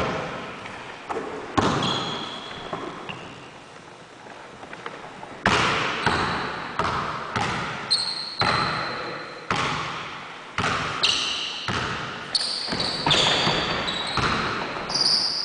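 Basketball being dribbled on a hardwood gym floor, each bounce echoing through the hall. A few scattered bounces near the start give way to steady dribbling from about five seconds in, a bit under two bounces a second, with short high sneaker squeaks on the floor.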